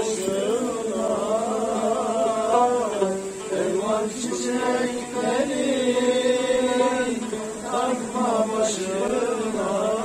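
A solo voice singing or chanting a slow melody, with long held notes that waver and bend in pitch.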